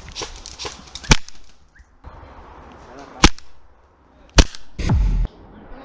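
Airsoft rifle firing three single shots, each a short sharp crack, the second about two seconds after the first and the third a second later. A brief dull thump follows the last shot.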